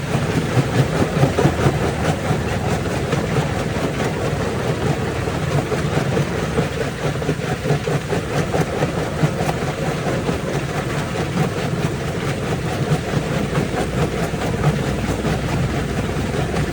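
Jaw rock crusher running under load: a steady heavy rumble with constant clattering and cracking as stones are crushed.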